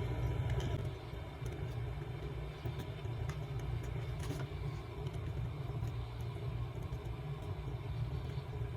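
A steady low rumble, like a running engine or traffic, with a few faint small clicks over it.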